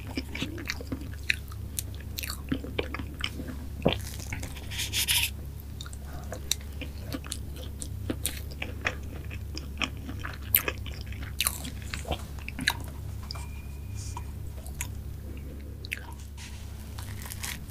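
Close-miked chewing of soft mango cake and whipped cream: many small wet mouth smacks and clicks over a steady low hum.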